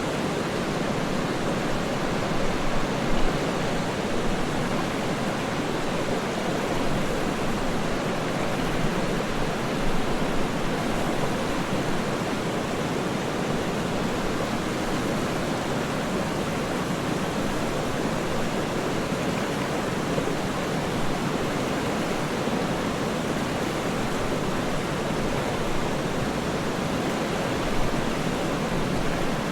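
Waterfall rushing steadily: a dense, even wash of water noise, deepest in tone, with no breaks or distinct splashes.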